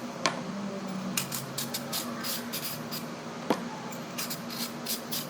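A carrot being peeled: quick repeated scraping strokes, two or three a second, with two sharp knocks, one near the start and one past the middle.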